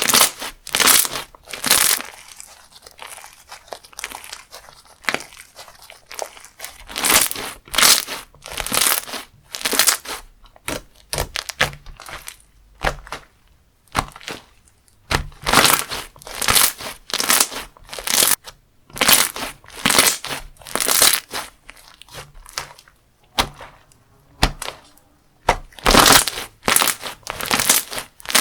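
Crunchy textured slime being squeezed and pressed by hand, giving crackling, crunching pops in repeated squeezes about once a second.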